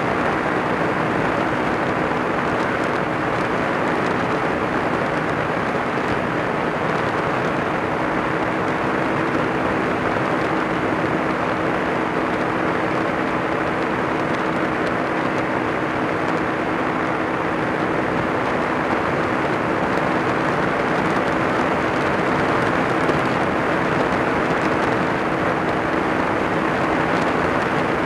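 Kolb ultralight's engine and pusher propeller running steadily in cruise flight, an unchanging drone with a heavy rush of air over the wing-mounted microphone.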